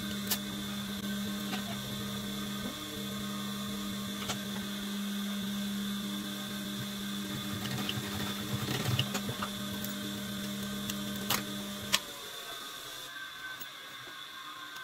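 Industrial sewing machine's electric motor humming steadily, with a few light clicks and a rustle of handled denim around the middle. The hum stops with a click about twelve seconds in.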